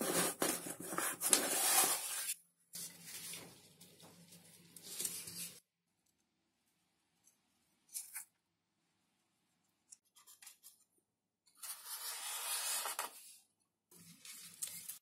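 Hand work on craft materials: several separate bouts of rubbing and scraping, each lasting one to three seconds, with a few light clicks between them.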